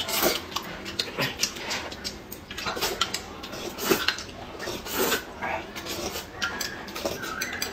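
Loud slurping and chewing of noodles, in a quick run of short wet sucking strokes, with a drink being sipped from a glass and light clinks of chopsticks and dishes.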